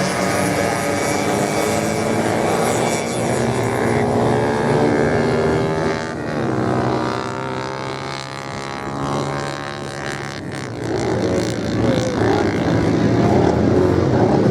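Several racing motorcycle engines revving hard on sand, their pitch rising and falling as the bikes pass. The sound drops a little around the middle and swells again near the end.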